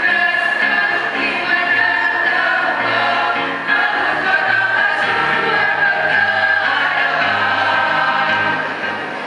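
A choir singing in parts, with long held notes.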